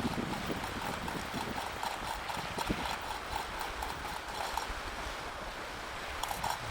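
Chain hoist clicking in a steady run of small metallic ticks as its chain is let out, slowly releasing tension to lower the lift.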